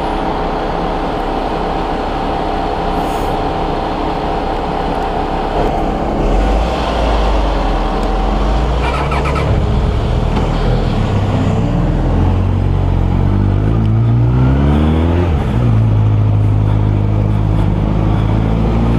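Motor vehicle engines running in stopped traffic. From about ten seconds in, one engine revs up, its pitch rising for several seconds, then drops back to a steady lower drone.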